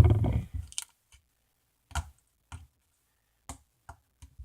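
Scattered short clicks and knocks of objects being handled. A louder, low rustling knock comes right at the start, then about five separate light clicks follow.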